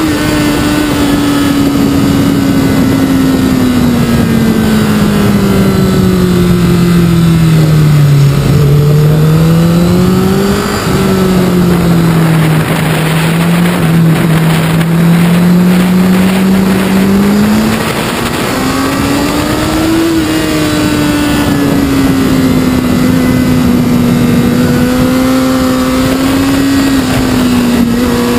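Sport motorcycle engine under way, its note sinking through the first third as the bike slows into a bend, jumping up briefly, staying low for several seconds, then climbing again about two-thirds in as it accelerates and holding steady. A steady rush of wind and road noise runs underneath.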